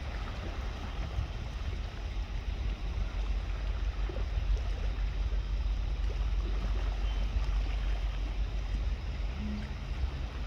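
Steady seaside ambience: a constant low rumble of wind with the wash of waves, and no clear birdsong.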